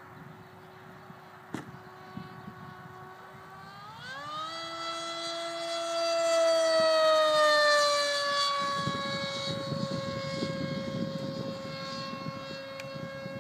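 Electric brushless motor and propeller of a HobbyKing Darkwing flying-wing RC plane in flight, a steady whine that climbs sharply in pitch about four seconds in as the throttle opens. It is loudest a few seconds later, then slowly sinks in pitch and fades a little.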